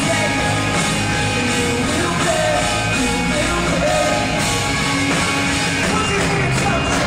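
Live rock band playing a song with a lead vocal, recorded from within the crowd. The sound is steady and loud, with a sung melody line wavering in pitch in the middle.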